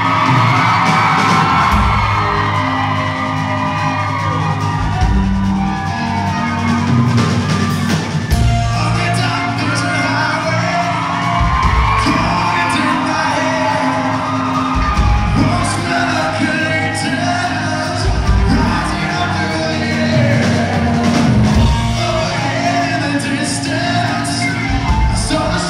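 Live rock band playing, with a male lead vocal sung hard into a microphone over electric guitar and a pulsing low end, heard in a large hall.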